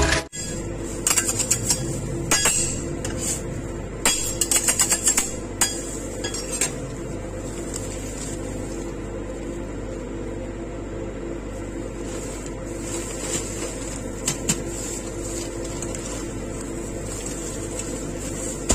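Metal spatulas clinking and scraping on the steel cold plate of a rolled ice cream machine, with a quick run of taps about four seconds in and scattered clinks later, over a steady mechanical hum.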